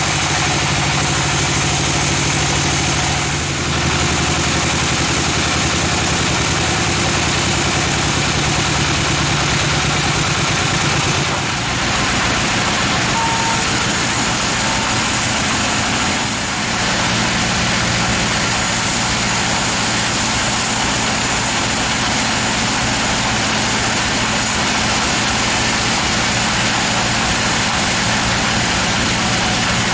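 Sawmill machinery running steadily, a loud continuous mechanical sound with a low engine hum underneath, dipping briefly three times.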